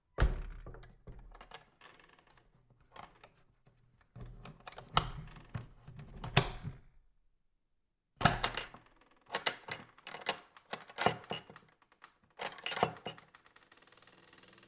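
Old farm door creaking as it swings, then its metal latch clacking and rattling shut. This happens twice, each time with a loud knock at the start and several sharper knocks as the latch catches.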